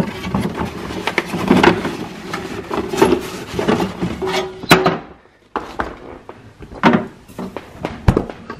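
Rummaging in a refrigerator: items knocked and shifted on the shelves and door shelf, a foil wrapper crinkling, and a few sharp clicks and knocks. The fridge door shuts in the second half.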